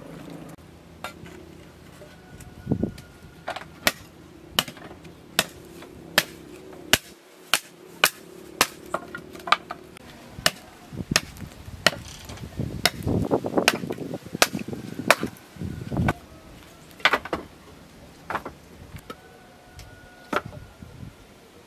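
Hatchet chopping dry branches into firewood: a long series of sharp wooden strikes, about one or two a second, with a flurry of quicker knocks around the middle.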